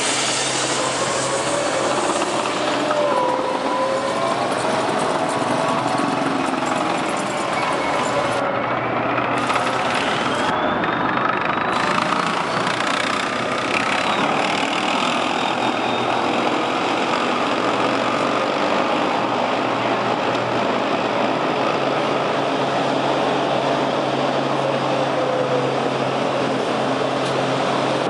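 Tracked armoured personnel carrier of the M113 type driving on concrete: its diesel engine runs steadily under the clatter of the tracks. Whines and squeals waver up and down over it, and one whine rises about a third of the way in.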